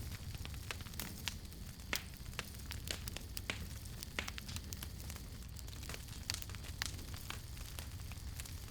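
Campfire crackling: irregular sharp pops and snaps from burning wood, several a second, over a low steady rumble and hiss.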